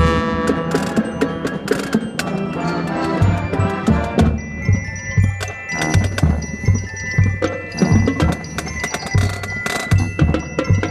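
Marching band music in a passage led by mallet percussion and bells: a strong hit at the start with ringing tones, then a steady low drum beat about twice a second from about three seconds in under a held high bell tone.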